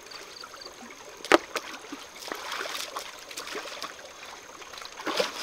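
Water trickling and splashing, with small clicks and one sharp knock about a second and a half in.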